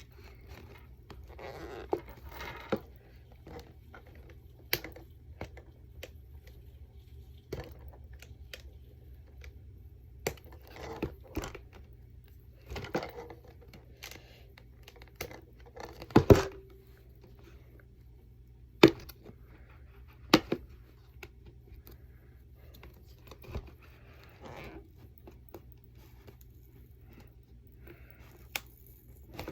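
Plastic toy packaging being torn and crinkled by hand in a struggle to get it open, with scattered sharp clicks and knocks, the loudest a little past the middle.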